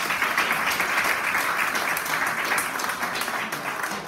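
Audience applauding, thinning into scattered claps near the end.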